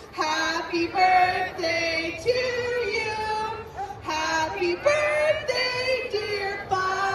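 A high singing voice, child-like or female, carrying a melody in held notes that change about every half second, with little accompaniment heard.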